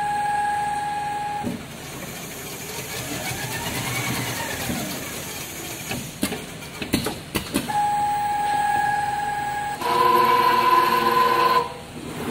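Richpeace automatic tufting bar-tack sewing machine running through its cycle: a steady motor whine, a whine that rises and falls in pitch, then a quick run of sharp clicks about six to seven and a half seconds in, after which the steady whine returns and grows louder near the end.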